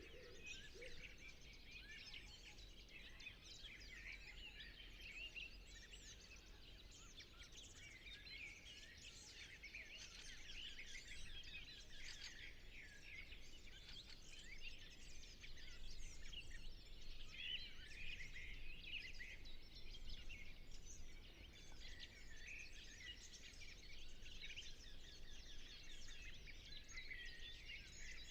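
Many small songbirds chirping and twittering at once in a dense chorus, with a low wood pigeon coo trailing off in the first second.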